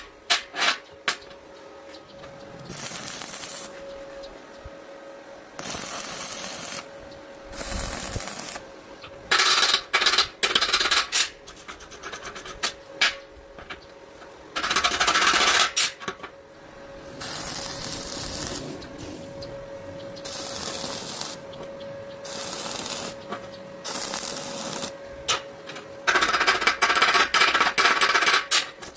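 Workshop metalwork: sharp metallic clinks and about a dozen short, separate bursts of tool noise, each about a second long, over a faint steady hum.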